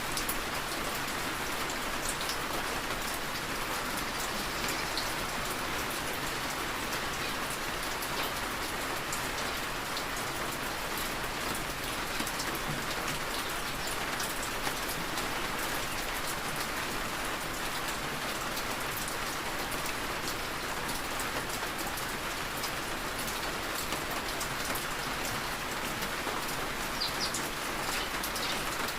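Heavy rain falling steadily, with individual drops ticking here and there.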